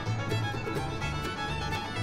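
Background music: a fiddle-led tune over a steady bass beat.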